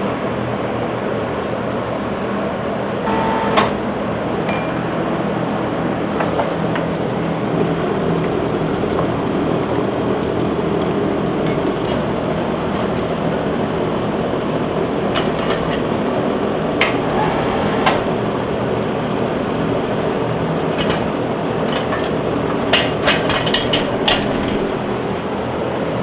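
Steady mechanical whirring noise with a low hum, broken by scattered short metallic clinks, a few close together near the end.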